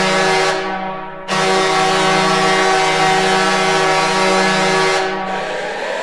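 Detroit Red Wings arena goal horn blowing: a sustained air-horn blast that cuts off about a second in, then a second long blast of about four seconds that fades away near the end.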